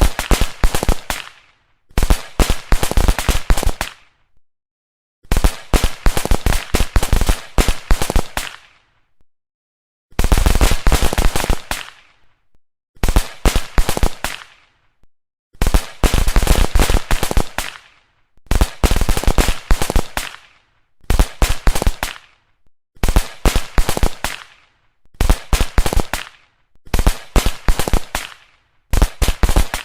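Strings of firecrackers going off in rapid, crackling runs of sharp bangs, each run lasting one to three seconds and separated by brief silences, about a dozen runs in all.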